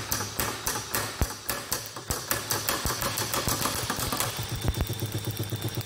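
Aircraft magneto with an impulse coupling being spun by a battery drill, clicking sharply and evenly about five times a second over the drill's hum. After about four seconds the drill speeds up: a thin whine comes in and the clicks come much faster.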